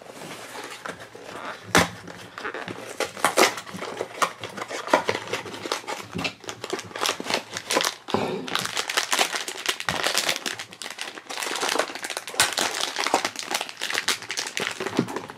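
Silver foil blind-box bag crinkling and crumpling in the hands as it is scrunched up and torn open: a dense, continuous crackle that gets busier in the second half.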